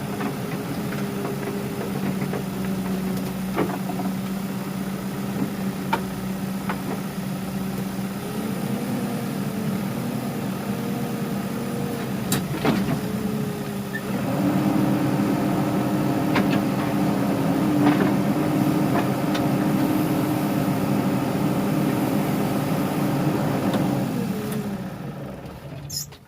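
Heavy-equipment diesel engine running steadily, with a few short knocks. About 14 seconds in it gets louder and higher, as if working under load, then it dies away near the end.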